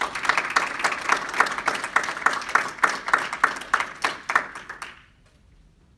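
Small audience applauding, with one clapper close by whose sharp claps stand out over the rest; the applause dies away about five seconds in.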